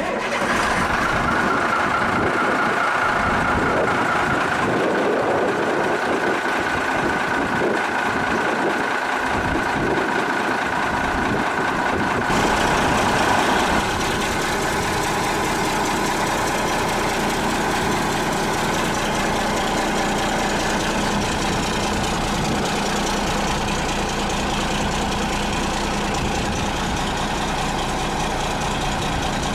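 Diesel engine of an M936A2 5-ton military wrecker idling steadily, running on a freshly fitted muffler. A steady high whine runs over the first half.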